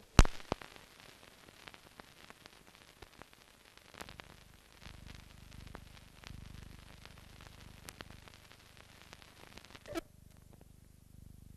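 Clicks, crackle and faint hiss on the soundtrack of a silent film transfer: a loud click just after the start, then scattered smaller clicks, with a faint low hum coming in about four seconds in and a short pitched blip near the end.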